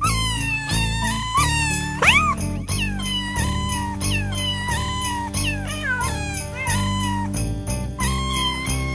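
Cat meows at changing pitches, strung in rhythm like a sung tune over a backing track with a steady bass and chords. One longer, louder rising meow comes about two seconds in.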